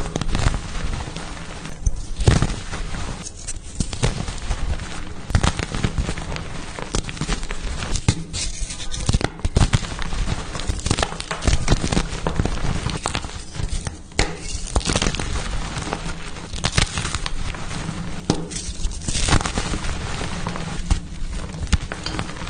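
Pasted gym chalk blocks being crushed, giving dense, irregular crunching and crackling with a few brief pauses.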